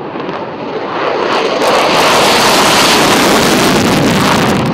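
F-16 fighter jet taking off with its afterburner lit: a loud jet roar that swells over the first two seconds and then holds.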